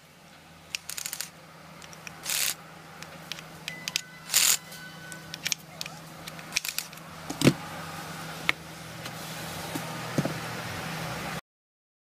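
Cordless drill-driver backing out the small screws that hold a Bose SoundDock's circuit board, in short bursts, among clicks and rattles of the plastic housing and loose screws being handled, over a low hum. The sound cuts off abruptly near the end.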